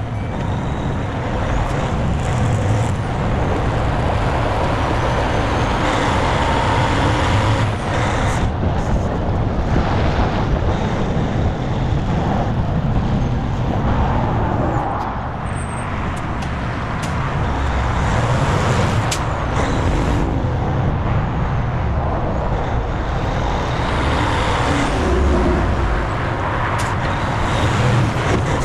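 Semi truck on the move: engine and road noise, steady throughout, with a few short, sharp sounds mixed in.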